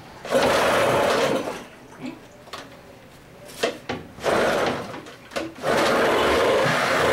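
Old 15 hp OMC outboard motor being pull-started cold on the choke after long storage: it fires for about a second and dies, is pulled again, and catches and keeps running steadily near the end.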